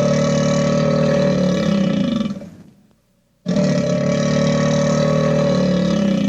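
A cartoon roar sound effect: a long, rough, low growling roar that fades out, then the same roar again after a short gap.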